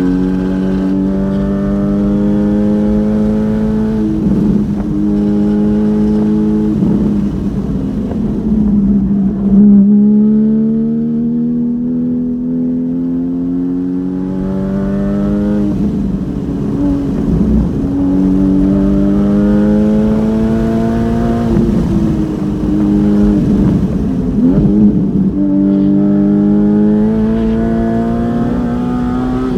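Porsche Cayman GT4's 3.8-litre flat-six with open exhaust, driven hard on track and heard from inside the car. Its note climbs steadily under acceleration and drops sharply at each gear change, several times. On downshifts into corners it gives quick blips.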